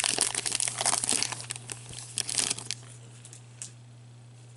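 Wrapper of a hockey card pack crinkling and tearing as gloved hands open it and pull the cards out. The crinkling stops a little under three seconds in.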